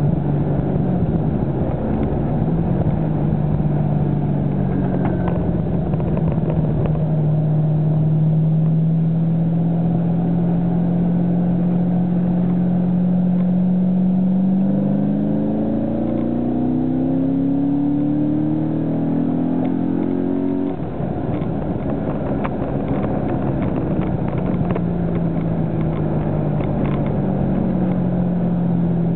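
Car engine heard from inside the cabin, its note holding steady, then rising for about six seconds as the car accelerates and dropping sharply at a gearshift, then steady again. Road and wind noise run underneath.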